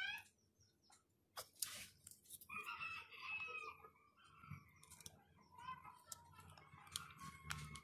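A rooster crowing, with scattered small clicks and taps from smartphone parts being handled and fitted together.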